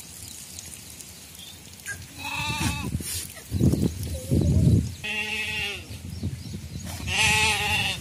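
Sheep and goats in a flock bleating: three wavering bleats, about two, five and seven seconds in. Between the first and second bleat come two loud, muffled low sounds.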